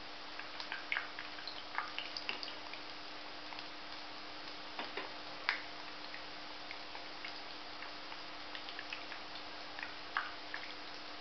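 Gulab jamun dumplings deep-frying in ghee in a kadhai: a steady soft sizzle with scattered small crackling pops.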